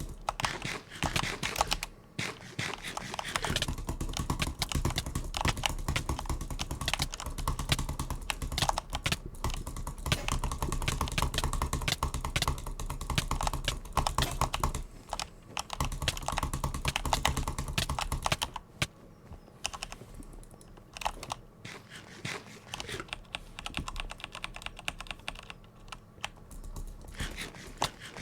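A handheld butterfly clicker being worked, giving a rapid, dense run of clicks. About two-thirds of the way through the clicking thins out to sparse, quieter clicks, then picks up again near the end.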